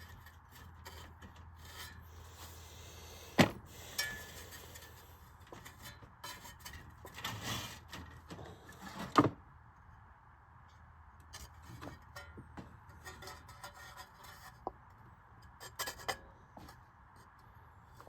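Hands and tools working at a Marvin 1015 fan's blade to pull it off the motor shaft: rubbing and scraping with scattered clicks, and two sharp knocks, one about three seconds in and one about nine seconds in. The blade is stuck and does not come free.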